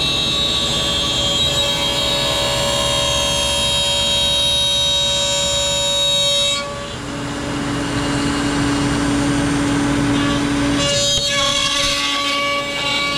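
CNC router spindle cutting ash, a loud, steady whine made up of several tones. About two-thirds of the way in, the pitch pattern shifts to a lower steady tone for a few seconds before the earlier whine comes back. The cut is too deep, which the operator blames for the noise.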